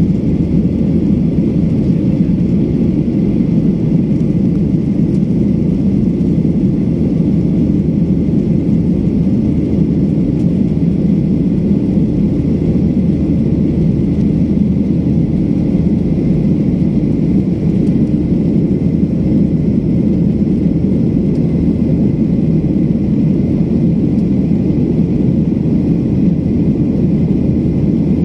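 Jet airliner cabin noise: the engines and rushing air heard from inside the cabin at a window seat, a steady low rumble.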